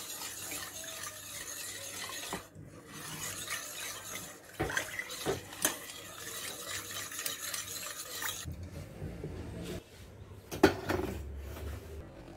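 Metal spoon stirring and scraping cake batter in a stainless steel bowl, with frequent clinks against the bowl's side. The scraping stops about eight seconds in, and a single sharp knock follows a couple of seconds later.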